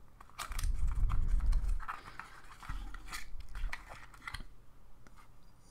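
Handling noises from unpacking an e-pipe kit: scraping and rustling of packaging with several light clicks, and a low rumble of handling in the first two seconds.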